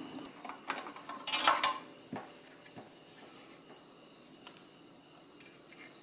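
Handling noise from a circuit board being lifted out of its plastic front housing: a few light clicks, a short scraping rattle about a second and a half in, and a knock at about two seconds.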